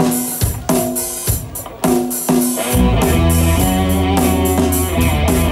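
Live rock band playing through a PA: electric guitar chords struck together with drum-kit hits, then about halfway through the bass and full band come in and the sound fills out into a steady groove.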